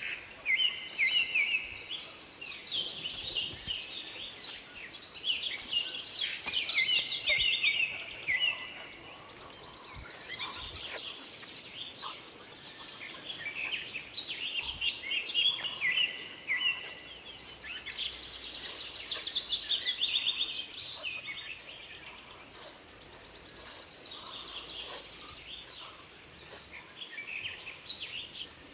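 Songbirds chirping and singing in quick repeated phrases, with a high buzzing trill that comes and goes every few seconds.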